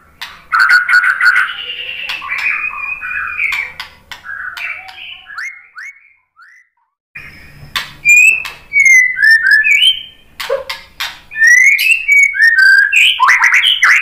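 Male white-rumped shama (murai batu) singing: fast repeated chattering notes, a brief break about seven seconds in, then loud clear whistles mixed with sharp clicks.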